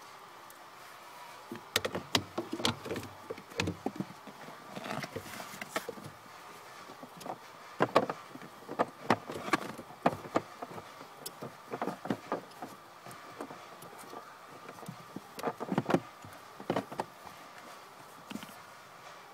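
Hard plastic clicks, knocks and rattles in irregular clusters as a Mahindra XUV500's glove box is unclipped and lowered by hand.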